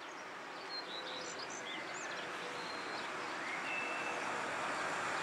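Outdoor ambience: small birds chirping a few times in the first two seconds, over a steady rushing noise that grows louder toward the end.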